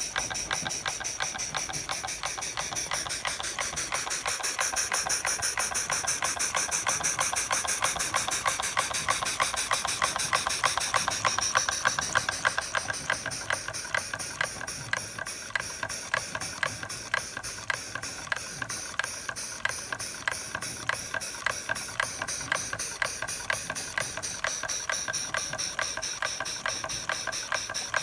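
Stuart No. 9 model steam engine running fast, its exhaust giving a rapid, even beat of short steam puffs with a steady hiss as it turns a meat grinder through a belt and pulley. It runs louder for a while, then eases down about twelve seconds in.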